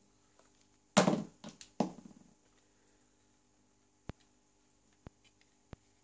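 Hands handling and folding white cardstock. A knock and rustle comes about a second in, then softer rustles, then three short sharp clicks in the second half.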